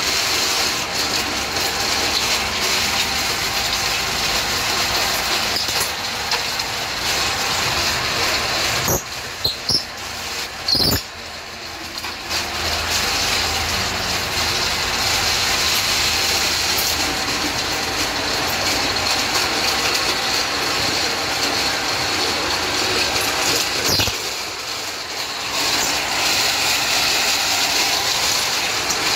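Three-phase electric power trowel with a 3 hp motor and 1000 mm float disc running, the disc scraping over gritty ground: a steady scraping noise over the motor's hum. It drops briefly twice, with a few knocks around the first drop.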